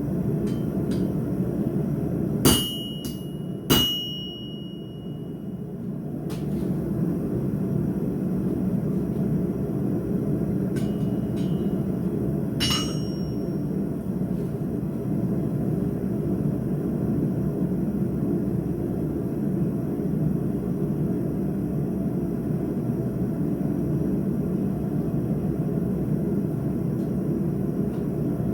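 Hammer blows on steel at the anvil: two sharp ringing strikes a little over a second apart, a few light clicks, then a third ringing strike near the middle. A steady roar from the forge runs underneath.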